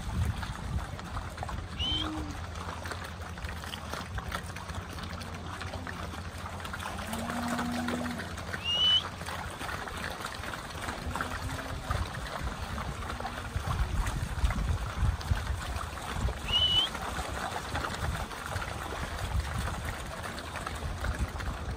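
Friesian steers walking through wet mud and puddles, their hooves squelching and splashing in an uneven run of steps that thickens near the end.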